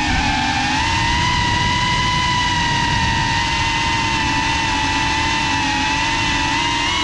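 FPV racing drone's brushless motors and propellers whining steadily in flight, heard from the drone's own onboard camera, with a low rushing noise beneath. The pitch dips briefly near the start as the throttle eases, then picks back up and holds.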